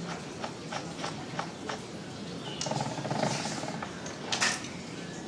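A run of light clicks and taps, like small parts being handled, then a brief buzz lasting under a second about halfway through, and a sharper click near the end.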